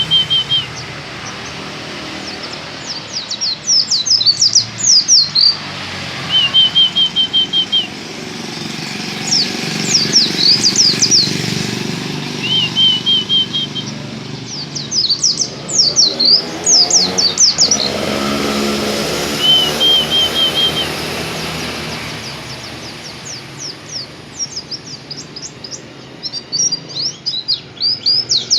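Pleci dakun white-eye singing: bursts of rapid, high, falling notes every few seconds, with short lower trills between them. A low engine-like rumble runs beneath and swells about halfway through.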